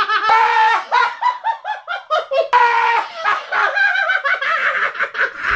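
A man's high-pitched falsetto laughter, a rapid run of short cackles, turning about halfway through into a long, wavering, high-pitched cry.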